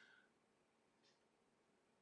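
Near silence: room tone, with one faint tick about a second in.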